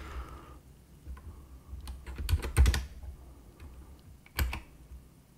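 Computer keyboard keys being typed in short, irregular bursts, with a quick run of keystrokes in the middle and one louder keystroke near the end.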